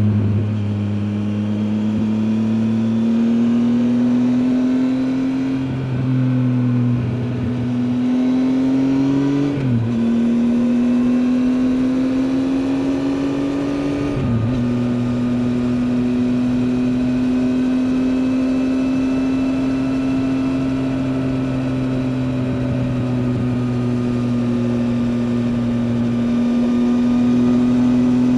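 Triumph Tiger 800 XCA's three-cylinder engine under way. The engine note rises as it pulls, drops sharply at upshifts about ten and fourteen seconds in, then holds nearly steady at cruise.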